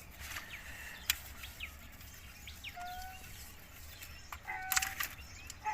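Quiet outdoor background with a few short bird chirps and a couple of sharp clicks or knocks, the loudest one a little before the end.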